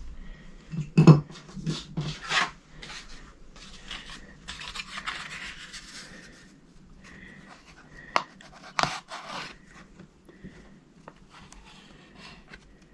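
A thin scraper sheet rubbing and scraping hardened black hot-melt glue flush with a wooden board, where the glue fills a knot hole. Among the scraping strokes come several sharp knocks, loudest about a second in and again near nine seconds.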